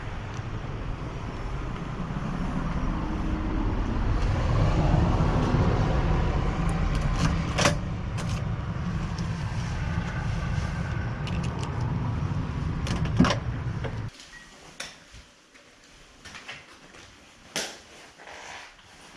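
Steady low outdoor rumble with a brief sharp click partway through and a louder click of the front door's latch about thirteen seconds in. The rumble cuts off abruptly a moment later as the door shuts, leaving a quiet hallway with a few soft clicks and knocks.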